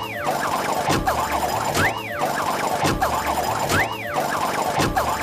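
A pneumatic jackhammer rattles steadily as it breaks up concrete. Over it, a wailing tone rises and falls about every two seconds.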